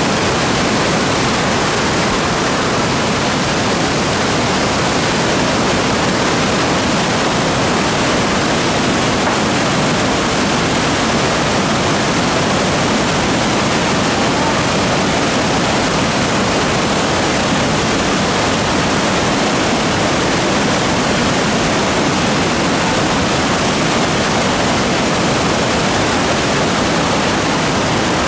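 Loud, steady rush of whitewater: a river in spate pouring over rapids and falls between boulders.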